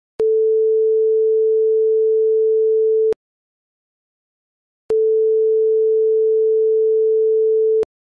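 TV buzzer sound effect: a steady, mid-pitched pure tone sounding twice, each time for about three seconds, starting and stopping abruptly with a click.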